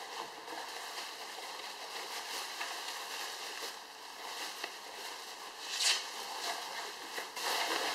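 Plastic bubble wrap being handled, rustling and crinkling, with a louder rustle about six seconds in.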